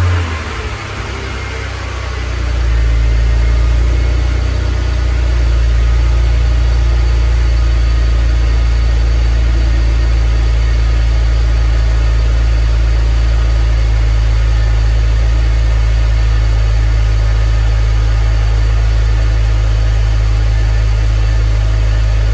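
BMW Z4's engine idling just after start-up. It grows louder about two to three seconds in, then runs steadily, left running so air can burp out of the freshly refilled cooling system.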